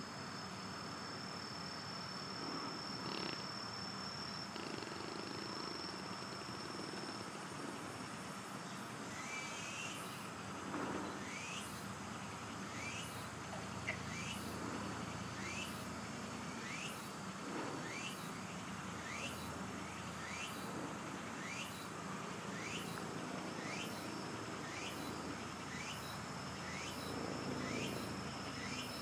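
Insects calling: a steady high-pitched trill, joined about nine seconds in by a short rising chirp that repeats a little more than once a second.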